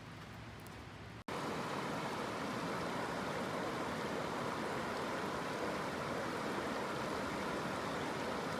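Steady rushing of flowing water, starting abruptly about a second in after a quieter stretch.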